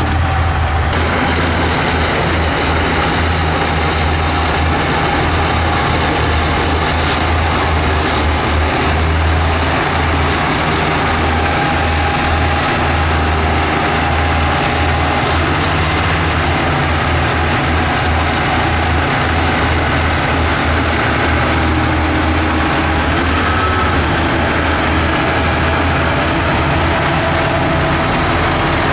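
Heavy diesel earthmoving machine engine running steadily with a deep low rumble, with faint wavering higher whines over it.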